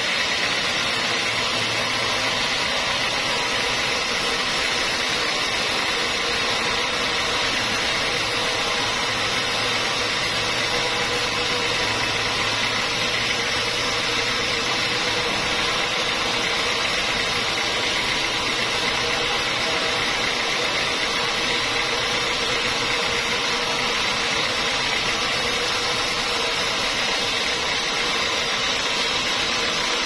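Band sawmill running steadily, its blade ripping lengthwise through a large squared block of mahogany.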